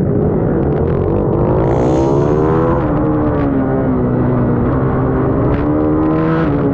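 Bucci BR12 GP minibike engine heard from the rider's onboard camera, over a steady rush of wind and spray. The revs climb for the first two to three seconds, drop sharply near three seconds in, hold fairly level, then climb again near the end.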